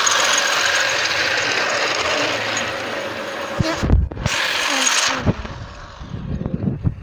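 Toy Shinkansen train's electric motor and wheels whirring steadily as it runs along plastic track close by. About four seconds in the whirr breaks off, leaving irregular low knocks and bumps.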